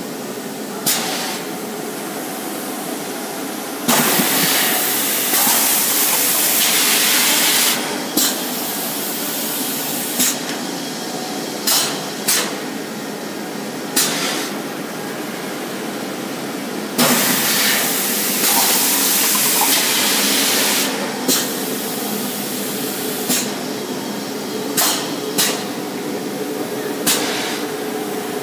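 EPS foam cup moulding machine running: a steady machine hum, broken twice by loud hissing blasts lasting a few seconds each, about 13 seconds apart, with sharp clacks every second or two.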